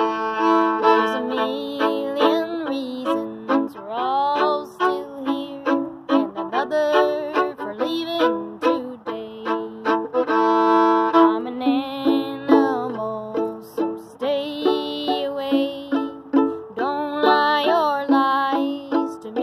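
Solo violin played with a bow: a black carbon-fibre violin carries a melody over held lower notes, with several upward slides into notes.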